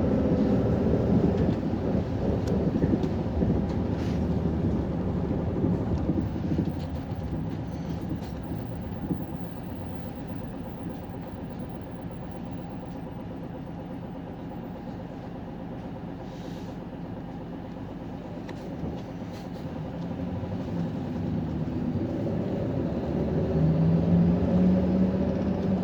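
Inside a city bus: engine and road noise fall away as the bus slows, then stay low and steady for about ten seconds. Near the end the engine note rises again as the bus pulls away.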